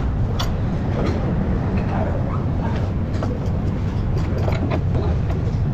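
Steady low mechanical rumble of workshop machinery, with a few scattered light metallic clicks from handling the coil-spring strut in the spring compressor.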